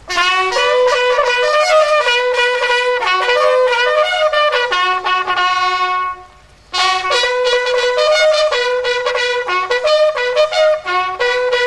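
A bugle call played on a single brass horn: quick runs of short, separately tongued notes in two phrases, with a brief pause about six seconds in.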